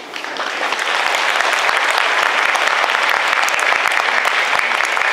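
A large audience, mostly children, applauding: dense clapping that builds quickly in the first second, then holds steady.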